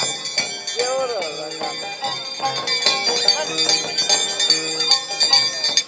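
Scissors dancer's pair of steel blades (tijeras) struck together again and again, a rapid metallic ringing clink, over accompanying folk music.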